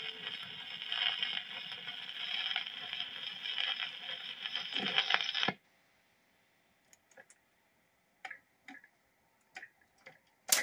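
Record changer's stylus in the run-out groove of a 45 rpm single, giving surface noise and crackle, which cuts off suddenly about halfway through as the tonearm lifts. Then a string of light mechanical clicks, ending in a louder clack, as the changer swings the tonearm back to its rest.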